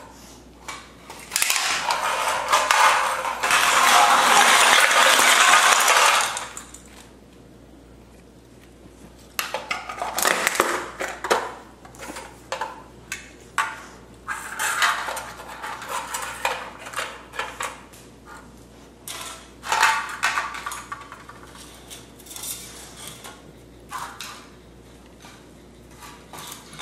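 Empty aluminium drink cans clattering, rattling and rolling on a hard floor as a golden retriever knocks them about with its nose and mouth. A long, loud clatter starts about a second and a half in and lasts several seconds, followed by shorter scattered bursts of clinks and rattles.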